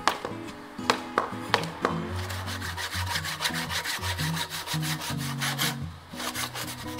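Japanese handsaw cutting through an old wooden railway sleeper: a run of quick rasping saw strokes from about two seconds in, with a few more near the end. A few sharp knocks come just before the sawing starts.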